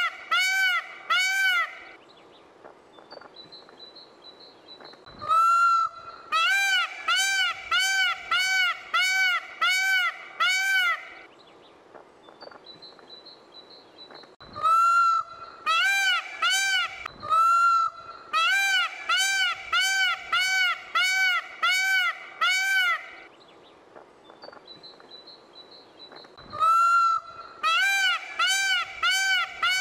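Peacocks (Indian peafowl) calling: runs of loud honking calls at about two a second, each call rising and falling in pitch. The calls come in bouts of around ten, with pauses of a few seconds between.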